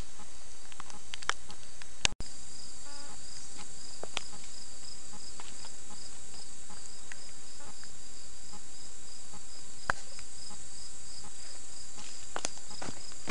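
Insects chirping in a steady, high, evenly pulsing rhythm that sets in right after a brief break in the sound about two seconds in, with a few faint clicks.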